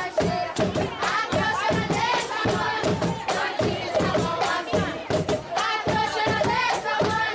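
Music for a boi dance: group singing over a fast, steady percussion beat, with crowd noise.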